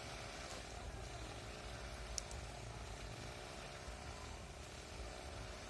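Cordless drill turning a rabbit on a roasting spit, a faint steady motor hum, with one small click about two seconds in.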